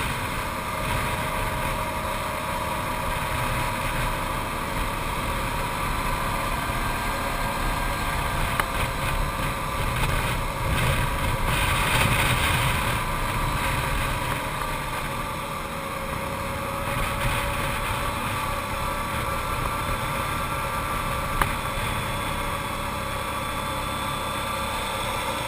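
Arctic Cat TRV 1000 ATV's V-twin engine running steadily on the climb, its pitch rising and falling a little now and then.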